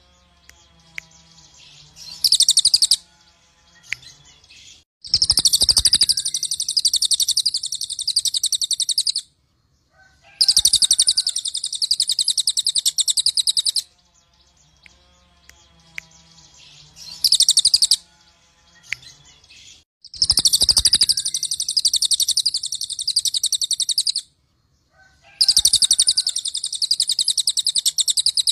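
Cililin (crested jay) singing in repeated bouts of fast, high rattling trills: four long bouts of about four seconds each and two short bursts, with brief pauses between them.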